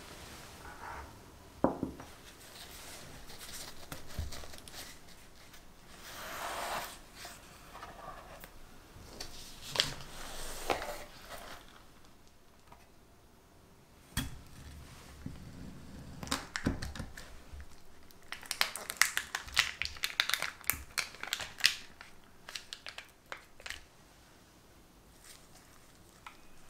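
Foil-lined paper wrapper of a block of cream cheese crinkling and tearing as it is handled and cut, in a dense run of crackles in the last third. A knife knocks down onto a wooden cutting board about halfway through.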